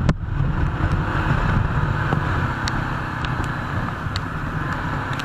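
Wind rush and low engine rumble from a Yezdi Adventure motorcycle riding at road speed on a wet road, muffled by the camera's waterproof housing.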